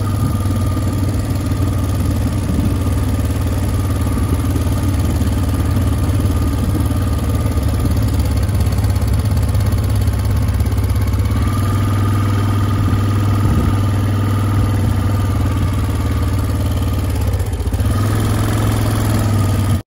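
Motorcycle engine running steadily, a loud even hum that stays close up throughout.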